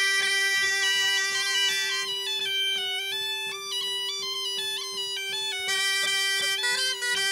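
Bagpipe playing a dance tune over a steady drone, the melody stepping between notes and thinning for a few seconds in the middle. Faint regular tapping underneath.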